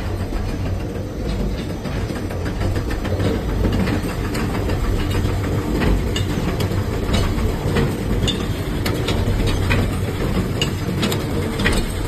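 A motor-driven steel bolt-forming machine running: a steady low hum from the electric motor and V-belt drive, with scattered sharp metallic clicks and clanks from the machine's moving parts.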